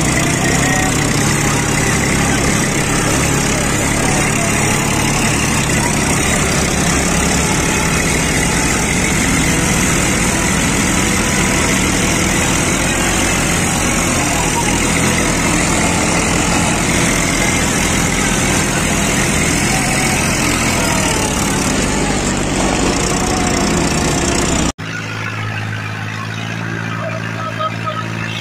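Diesel tractor engine working hard under load, pulling a soil-leveling scraper box through loose earth in high second gear, with a dense rushing noise over the engine. About 25 s in, the sound drops suddenly to a quieter, steadier tractor engine.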